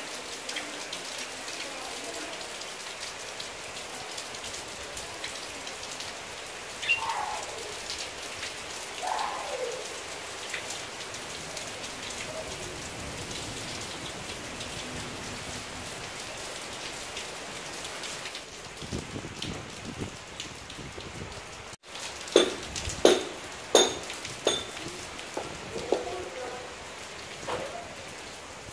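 Steady rain falling, an even hiss of drops on rooftops, walls and trees. Near the end comes a run of sharp knocks and splashes lasting a few seconds, louder than the rain.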